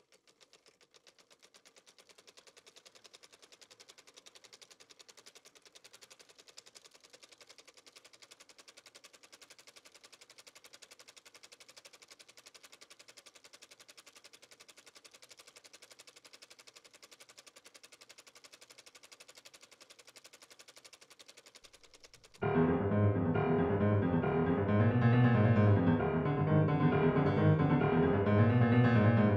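Faint, rapid, evenly spaced clicking that runs steadily and fades in over the first couple of seconds. About 22 seconds in, much louder piano music starts suddenly.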